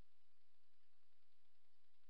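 Faint steady hiss with a low hum underneath: the self-noise of a trail camera's microphone, with no distinct sound from the passing cat.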